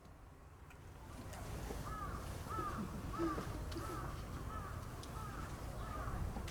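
A crow cawing repeatedly, a steady run of about eight caws at roughly one and a half a second, starting a couple of seconds in.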